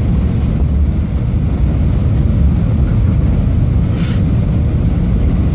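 Steady low rumble inside an airliner cabin during the descent to land: jet engine and airflow noise, with a brief faint hiss about four seconds in.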